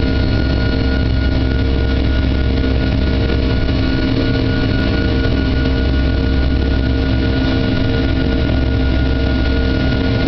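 Steady cabin drone of a Boeing 757-200's Rolls-Royce RB211 turbofan engines at climb power, heard from inside the cabin beside the wing: a heavy low rumble with a few steady whining tones over it.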